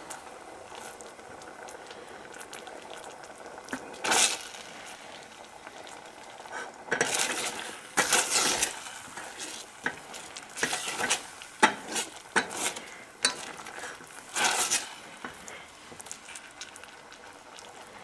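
Thick cornstarch-bound sweet and sour sauce bubbling at the boil in a stainless steel saucepan, with a spatula stirring and scraping around the pan in irregular bursts and a few sharp clicks against the metal.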